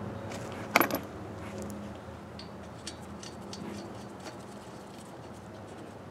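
Metal nuts clinking on the axle flange studs of a rear hub as they are put on by hand: one sharp metallic clink about a second in, then a few lighter clicks.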